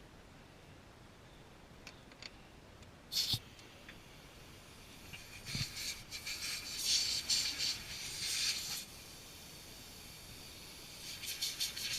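Hissing and rattling: a short hiss about three seconds in, then a longer rattling hiss from about five and a half to nine seconds, starting again near the end.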